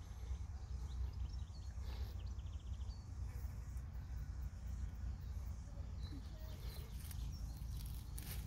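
Outdoor field ambience: a steady low rumble with a few faint, scattered bird chirps and a couple of brief rustling clicks.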